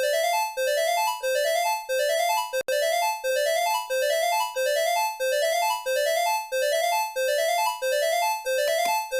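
Emergency alert alarm: a synthesized, rising three-step tone pattern repeating about every two-thirds of a second, with a brief cut-out a little after two and a half seconds in.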